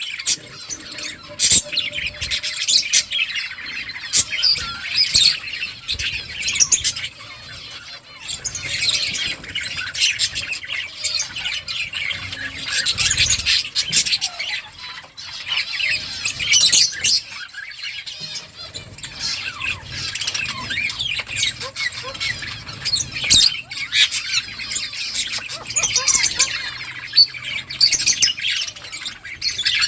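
A colony of budgerigars chirping and chattering nonstop, many birds calling over one another in a dense high twitter, with a few sharp clicks.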